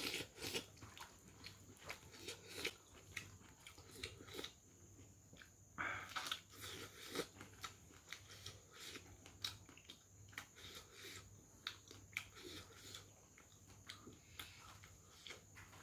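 Faint, close-miked chewing and lip-smacking of a person eating rice and corn kernels by hand: irregular soft wet clicks, with one louder mouth noise about six seconds in.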